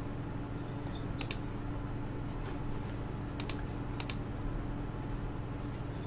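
Three pairs of sharp computer clicks, each a quick press and release, about one, three and a half, and four seconds in, over a steady low electrical hum.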